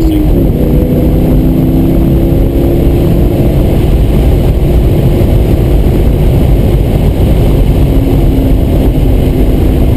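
2003 Corvette Z06's 5.7-litre LS6 V8 running hard at track speed, heard from inside the cabin. Its pitch drops sharply about half a second in, then holds fairly steady over a dense low rumble.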